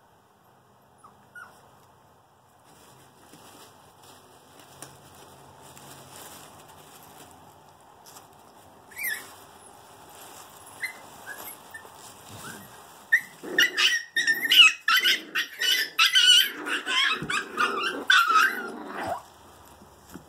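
Puppies play-fighting, with a single short yelp about nine seconds in and then a loud flurry of rapid high-pitched yips and barks lasting about six seconds.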